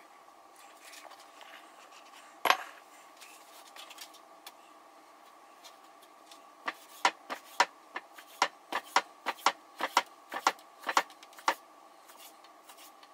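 Kitchen knife chopping food, the blade knocking on the cutting surface: one knock about two and a half seconds in, then a quick run of about twenty chops, three to four a second, stopping near the end. A steady hum runs underneath.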